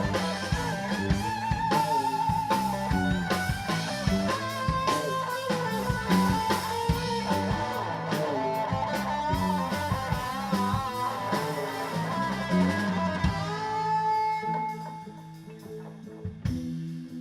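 Instrumental rock passage: an electric guitar playing a bending, vibrato-laden lead over bass and a drum kit. The band drops away near the end, leaving a few sustained notes.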